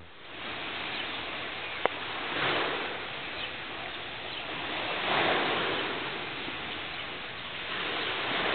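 Sea waves washing onto a pebble beach, the rush of water swelling and fading three times, with a single short click about two seconds in.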